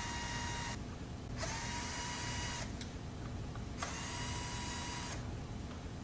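Cordless drill-driver backing screws out of an air conditioner's plastic front frame. Its motor whine comes in short runs of about a second, starting and stopping three times.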